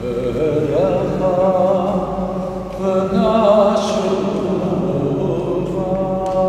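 Slow vocal chanting: a singing voice holding long notes that waver in pitch, with short breaks between phrases.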